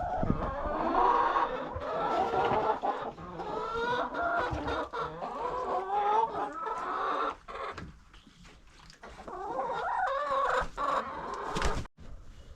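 Chickens clucking, several birds calling over one another, with a quieter stretch about eight seconds in.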